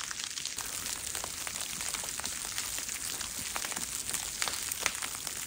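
Wet, rain-like snow pattering on a Dyneema hammock tarp: a steady hiss with many small ticks.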